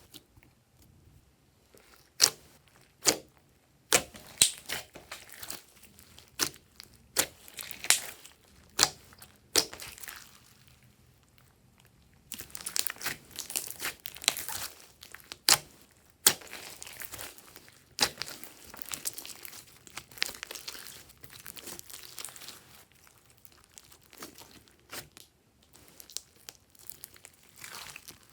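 Glossy slime being kneaded and stretched by hand: a string of sharp sticky pops and clicks for the first ten seconds or so, then longer crackling, crinkly squelching as it is pulled and pressed.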